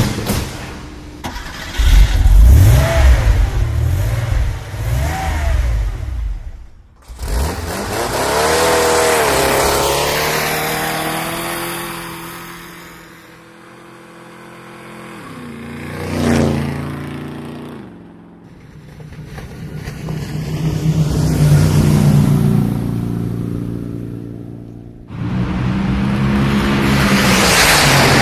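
A series of separate clips of motor vehicle engines revving and passing by, their pitch rising and falling and the level swelling and fading, with abrupt cuts between clips about a quarter, two thirds and nine tenths of the way through.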